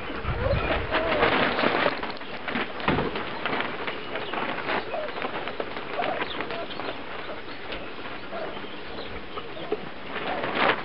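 Three-week-old wolfdog puppies suckling from their mother, a dense run of irregular wet smacks and clicks with a few brief squeaks and grunts.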